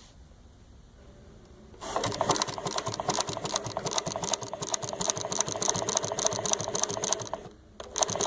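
Consew 339RB double-needle walking-foot industrial sewing machine, driven by a servo motor, stitching with a rapid, even clatter of needle and feed. It starts about two seconds in, stops briefly near the end, then starts again.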